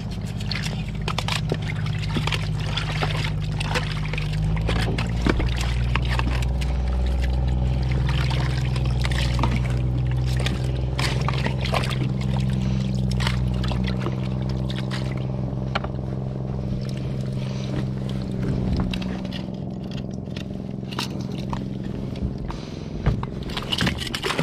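Boat engine running steadily under way, with water splashing and rushing along the hull. The engine note shifts slightly a few seconds in, and the lowest rumble drops off about halfway through.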